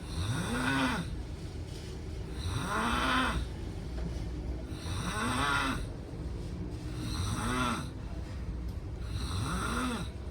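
Loud snoring: five long snores about every two seconds, each rising and then falling in pitch, over a steady low hum.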